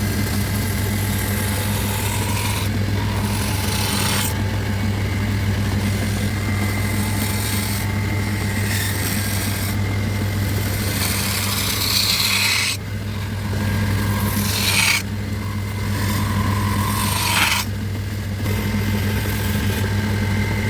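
Wood being shaped on an electric power tool: a steady low motor hum under a rasping scrape of tool against wood, which breaks off briefly several times.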